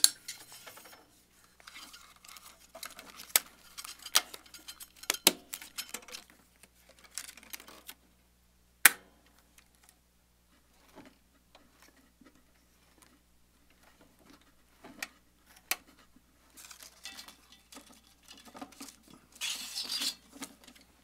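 Hands handling a metal 16 mm film reel on a Kodak Pageant sound projector: scattered light metallic clicks and clacks as the reel is fitted onto its spindle, with one sharp click about nine seconds in. Near the end comes a brief rustle as film is drawn off the reel for threading.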